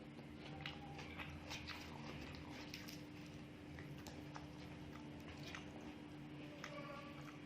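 Close-up eating sounds: a person chewing, with scattered soft clicks and smacks from the mouth and food, over a steady low hum.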